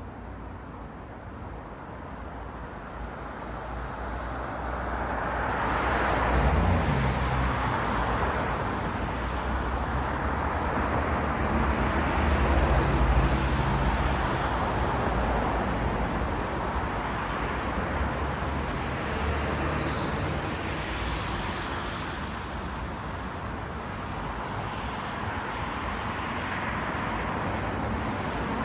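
Road traffic on a city street: cars passing one after another, tyre noise swelling and fading with a low engine hum under it. It grows louder a few seconds in and is loudest around a quarter and half way through.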